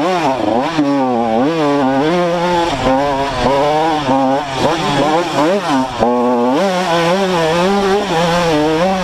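Two-stroke Honda CR dirt bike engine under way on a trail, revving up and down again and again as the throttle is worked, then holding a steadier note for a couple of seconds near the end.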